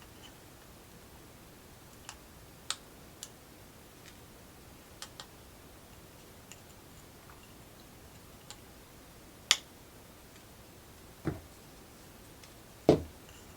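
Scattered light clicks and taps of small tools and parts being handled on a workbench during soldering, with two heavier knocks near the end.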